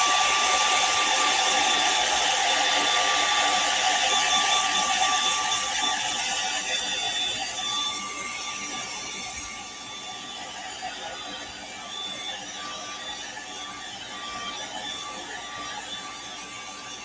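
Handheld hair dryer blowing steadily, a rushing hiss with a steady motor whine, aimed at a freshly painted lure to dry the paint. It grows noticeably quieter past the middle.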